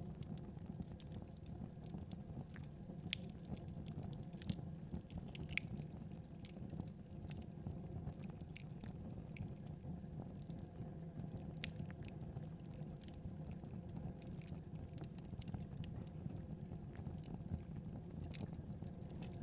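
Wood fire burning: a steady low rumble with frequent small, irregular crackles and pops.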